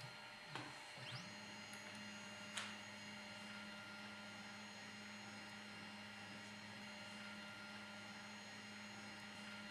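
Stepper motors of a 3018 CNC router moving an axis slowly through its homing cycle: a faint steady whine and hum that begins with a quick rising tone about a second in. Two light clicks come in the first few seconds.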